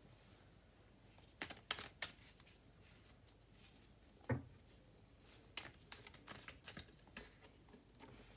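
Tarot cards being handled and drawn from the deck: soft flicks and taps of card on card and on the table. There is a cluster of clicks about a second and a half in, one sharper tap a little past four seconds, and a run of small clicks between about five and seven seconds.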